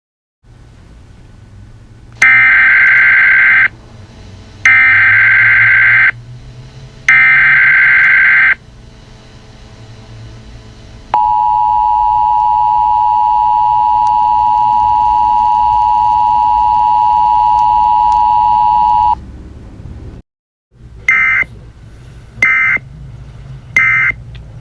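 Emergency Alert System header tones. Three loud SAME data bursts about a second and a half long are followed by the steady two-tone attention signal held for about eight seconds, then three short data bursts near the end, all over a faint low hum.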